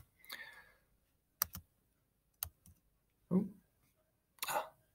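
A few sharp computer clicks while working a slide presentation that has misbehaved: a quick pair about a second and a half in, then two more around two and a half seconds. Short muttered sounds and breaths fall between them.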